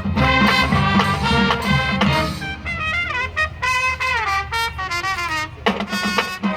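High school marching band playing in performance, its brass section carrying the melody. There are several falling pitch slides in the middle and a brief drop just before the end, where low sustained notes come in.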